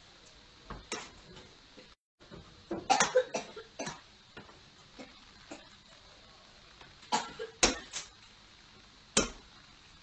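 Fire crackling: irregular sharp pops and cracks, a tight cluster of strong ones about three seconds in and more near the end, with a brief gap in the sound about two seconds in.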